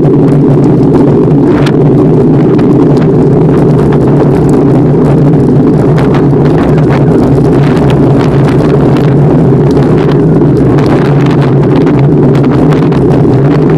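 Loud, steady rumble of wind and riding noise on the microphone of a bicycle-mounted camera while cycling along a paved path, with scattered small clicks and rattles.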